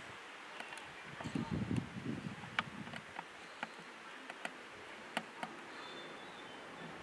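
An insect buzzing briefly about a second in, with scattered light clicks and taps around it.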